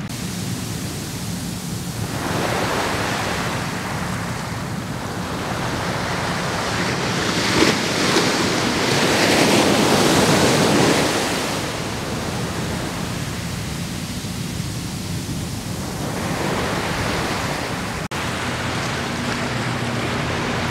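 Ocean surf: small waves breaking and washing up a sandy beach, the rush swelling and easing several times and loudest about eight to eleven seconds in.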